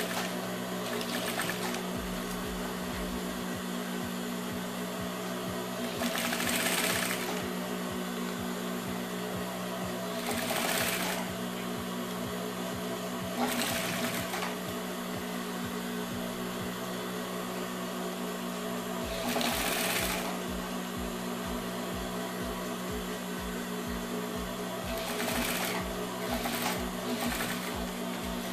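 Industrial sewing machine stitching through leather, topstitching a jacket sleeve cuff. A steady motor hum runs throughout, with several brief louder bursts as the machine runs. It stitches slowly and evenly, about two stitches a second, in the last third.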